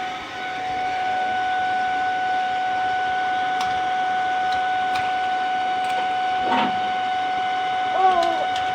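A steady machine hum with a constant whine and hiss, the loudest thing throughout. Over it come a few light taps or splashes and a baby's short vocal sounds, one about six and a half seconds in and a rising-and-falling one about eight seconds in.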